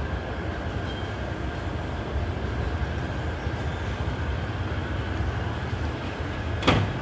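Street ambience: a steady low rumble of background traffic and city noise, with one sharp click near the end.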